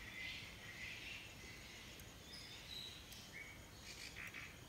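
Quiet background hiss with a few faint, short high chirps of birds scattered through it.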